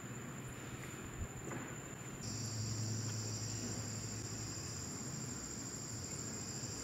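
Insects calling in a steady, high-pitched chorus that grows louder about two seconds in, over a low, steady background hum.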